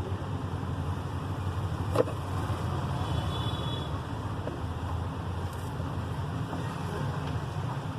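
Steady low background rumble, like traffic or a running motor, with one sharp click about two seconds in.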